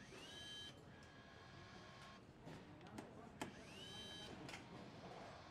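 Handheld power nutrunner running twice, about three seconds apart: each run is a faint whine that rises and levels off, then stops. Light clicks and knocks of assembly work in between.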